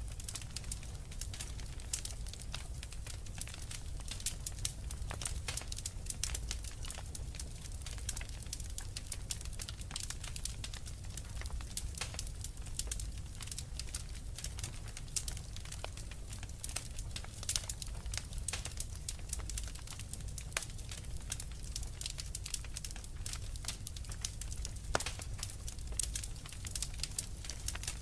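Fireplace fire crackling: a dense, irregular scatter of small sharp pops and snaps over a low steady rumble.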